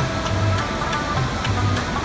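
Rabab, a plucked lute, playing a melody in a steady run of plucked notes over a low repeating bass.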